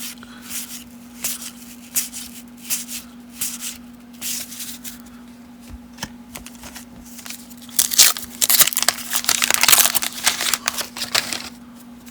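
1990 Topps baseball cards being flipped through by hand, each card sliding off the stack with a short papery snap, roughly once a second. About eight seconds in comes a denser, louder few seconds of card and paper rustling and crinkling. A faint steady hum runs underneath.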